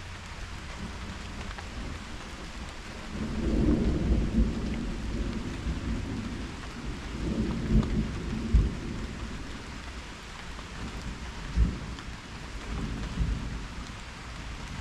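Steady rain hissing throughout, with rolling thunder rumbling in low waves from about three seconds in, swelling and fading several times with a few sharper cracks within the rumble.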